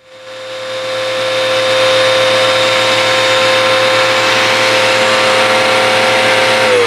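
Hoover WindTunnel vacuum cleaner switched on, its motor spinning up over about a second and a half to a steady whine with a rush of air, then switched off near the end, the pitch starting to fall as it winds down. It runs without the rattle: a new brush roller has replaced the one whose bearings had gone bad.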